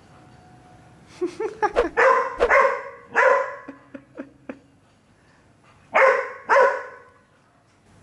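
Young golden retriever barking at a balloon: a quick run of short barks and yips starting about a second in, then after a pause two more barks.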